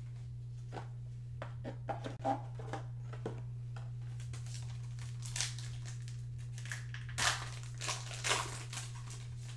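Foil trading-card pack wrapper being torn open and crinkled, in several crinkly bursts that are loudest in the last couple of seconds. Light clicks and taps of cards being handled come first, over a steady low electrical hum.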